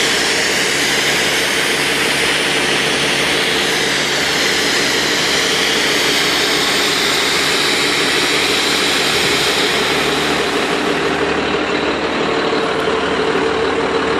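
Compressed air foam (CAFS) jetting from a fire engine's bumper turret: a steady rushing hiss of air and foam over the truck's engine running steadily to drive the pump and compressor. The hiss thins out near the end as the flow is shut off.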